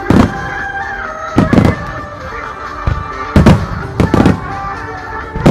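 Starmine firework shells bursting in a string of loud booms, several coming in quick pairs, over music played for the display.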